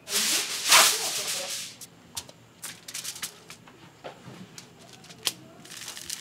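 Aluminium foil and a banana leaf rustling and crinkling as a whole fish is handled and laid on them: a loud rustle for about a second and a half, then scattered light taps and clicks.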